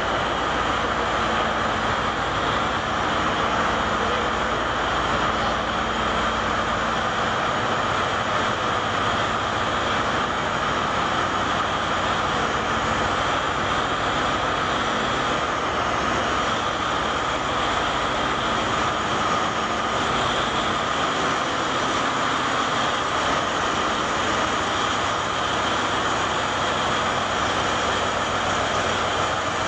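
LeTourneau L-2350 wheel loader's diesel engine running, a loud, unchanging machine noise with a steady hum through it.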